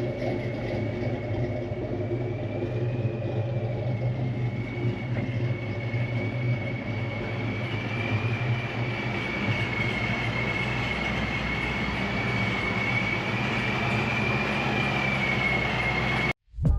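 Car engine running steadily, with a constant high-pitched whine over the low engine note. It cuts off abruptly near the end.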